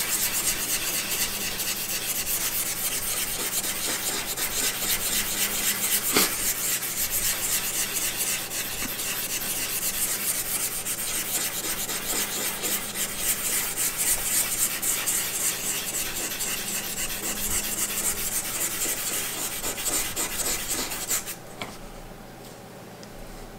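Hand-held 320-grit abrasive paper, wetted with conditioner, rubbing rapidly back and forth on an aluminum beam: a steady scratchy rubbing that stops abruptly about 21 seconds in. This is abrading the surface below its rolling marks to prepare it for bonding a strain gauge.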